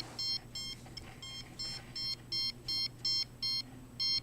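An electronic device beeping repeatedly: short, evenly spaced high beeps at about three a second, a few of them fainter around the one-second mark.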